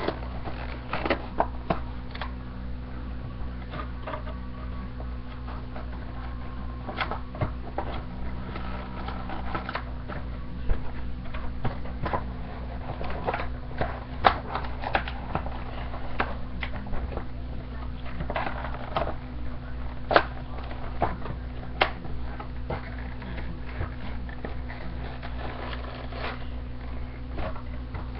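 Irregular rustling, crinkling and clicking of plastic and cardboard toy packaging as Nerf darts are taken out by hand, over a steady low electrical hum.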